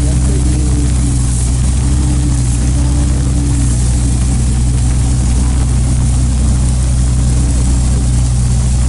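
Komatsu hydraulic excavator's diesel engine running steadily as the machine works, a constant low hum that holds the same pitch and level throughout.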